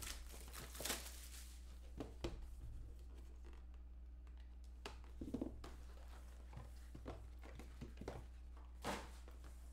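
Faint rustling and scraping as a cardboard trading-card box is opened and the packs inside are handled, in a few short bursts over a steady low hum.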